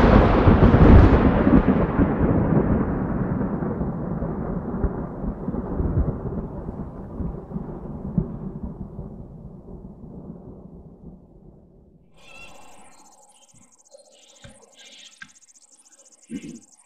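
A deep rumble left by a sudden boom, of the thunderclap or explosion kind, fading slowly away over about twelve seconds. Then comes quiet outdoor sound: a high, steady chirring of insects and a few soft thumps.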